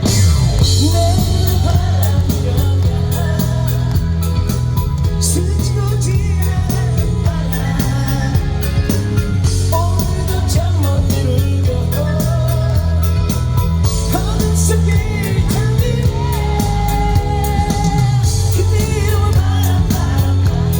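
Live band music: a Korean pop song played at a steady beat with bass, drum kit and guitar, and a singing voice carrying the melody over it.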